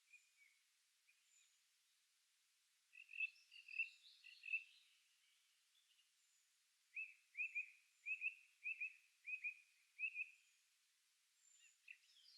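Songbirds singing in a forest: a short jumbled phrase about three seconds in, then a run of about eight short, repeated downward-slurred notes, with faint, thin, high calls from more distant birds throughout.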